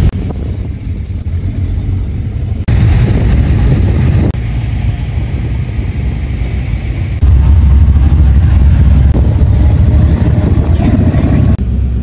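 V8 engines of classic and muscle cars rumbling as they drive slowly past, in a series of short clips spliced together; the sound jumps abruptly several times, loudest and deepest in the second half.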